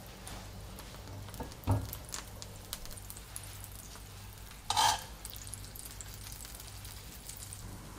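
Melted butter sizzling and crackling in a cast-iron skillet, with a soft knock a little under two seconds in. Just under five seconds in, a thick slice of egg-soaked bread is laid into the hot butter, giving a brief louder hiss.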